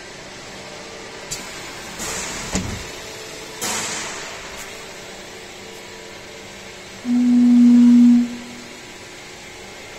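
Plastic vibration friction welding machine running a weld cycle. Two short hissing bursts and a thump come early, then about seven seconds in a loud, steady low buzz lasts just over a second as the plastic parts are vibrated together.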